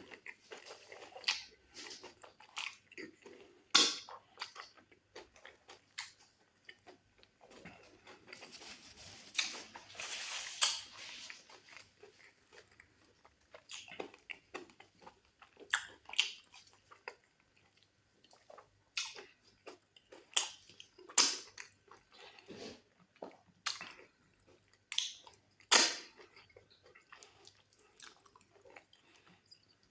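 A person eating goat meat and fufu with black soup close to the microphone: wet chewing, smacking and sharp mouth clicks, with a longer noisy stretch of slurping or rustling about nine seconds in.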